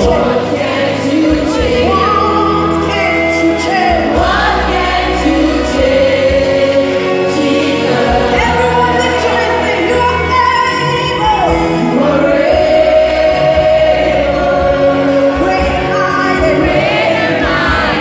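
Live gospel worship music: a group of voices singing a melody together over amplified accompaniment with a steady bass line.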